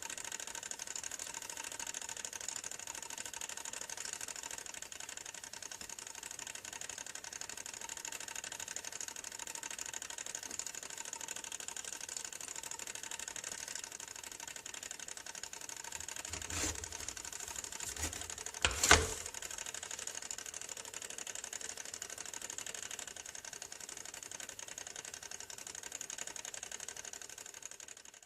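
Toaster running with a steady fine mechanical ticking. A click comes about two-thirds of the way through, then a louder sharp clack two seconds later, as the toaster's mechanism releases.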